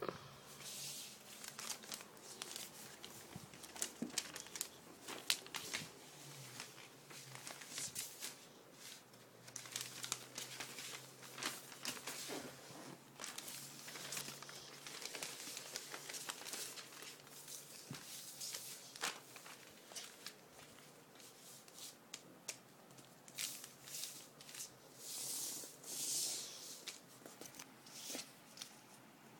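Packaging being crinkled and torn, with many small sharp clicks as toy airport pieces are unwrapped and handled.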